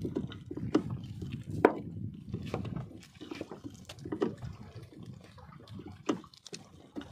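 Wet fishing net with fish in its mesh being hauled by hand into a small wooden boat: irregular wet knocks, drips and splashes, the sharpest knock about a second and a half in.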